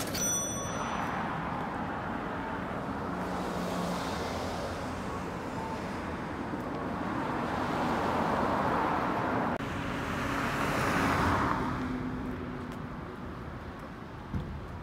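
Road traffic passing on a city street: one car after another going by, their tyre and engine noise swelling and fading, with one pass breaking off sharply about ten seconds in.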